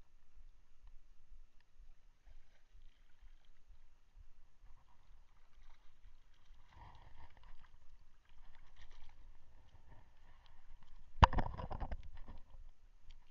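Water sloshing and low wind rumble on an action camera's microphone, with a sharp knock and about a second of handling noise near the end.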